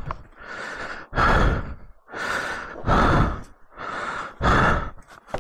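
A man breathing heavily and out of breath just after a motorcycle crash, close to the microphone: loud exhales about every second and a half with quieter inhales between.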